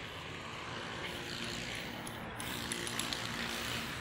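Steady hum of background road traffic, with a few faint light clicks about three seconds in.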